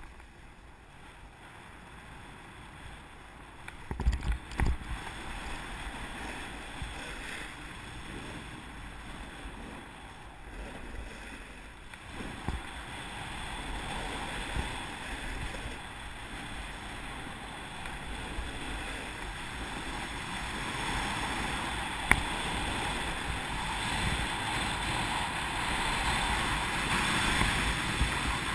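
Snowboard sliding and carving down a groomed run: a steady scraping hiss of the board on the snow mixed with wind on the microphone, growing louder as speed builds. A few low knocks about four seconds in, and a single sharp click later on.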